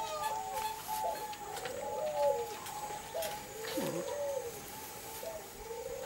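Several zebra doves (perkutut) cooing. Soft, arching coo notes come every second or two, some overlapping at different pitches.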